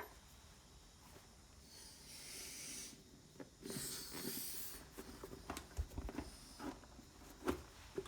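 Workbench handling noises: two brief rustling hisses, then a scatter of small clicks and knocks as the inner tube and small valve parts are handled.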